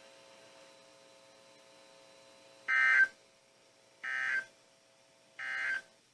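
Three short bursts of Emergency Alert System (SAME) digital data tones on a NOAA Weather Radio broadcast, each under half a second and about a second and a half apart: the end-of-message signal that closes the weekly test. A faint steady hum lies underneath.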